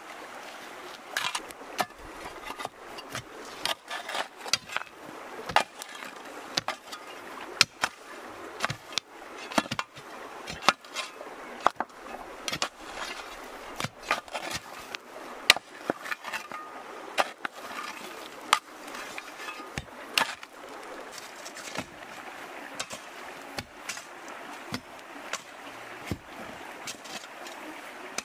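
Hand digging with a hoe and shovel in stony clay soil: irregular sharp strikes of the metal blades into earth and against rocks, with scraping between them.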